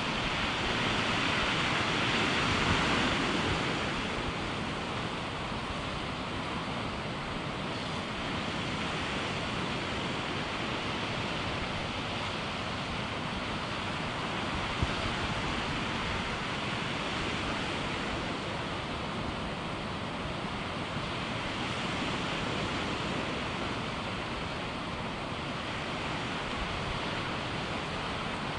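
Sea surf washing and foaming, a steady rush of water mixed with wind on the microphone, swelling slightly in the first few seconds. A single brief knock about halfway through.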